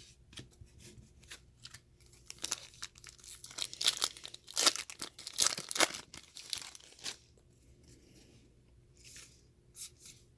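A trading-card pack's plastic wrapper being torn open and crinkled, with a dense stretch of tearing and crackling in the middle and lighter rustling of the wrapper and cards before and after.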